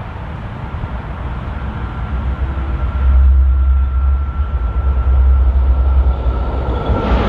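SBB RABDe 500 (ICN) tilting electric train approaching, its rumble growing louder about three seconds in, with a thin steady whine running through the second half.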